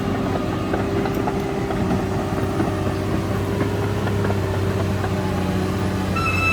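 Caterpillar D6R XL bulldozer's diesel engine running steadily, with a few faint clicks. Near the end a high, steady, slightly wavering tone comes in over it.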